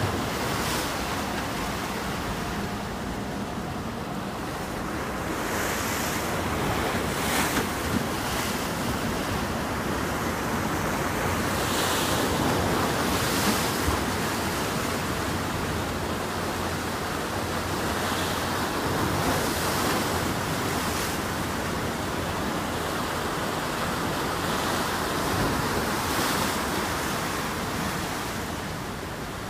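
Wind buffeting the microphone over the steady rush of waves, with a few brief splashing surges.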